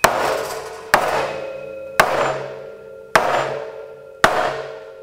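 Five mallet strikes on a metal eyelet setter and die, about one a second, each leaving a short ringing tone that fades. They are flaring a number 9 brass eyelet into a ring sewn into a sail corner.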